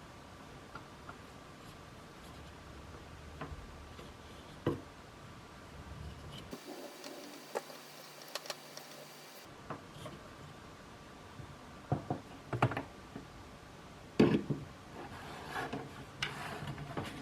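Scattered clicks, light knocks and rubbing of small objects being handled, growing busier in the second half with the loudest knock about fourteen seconds in.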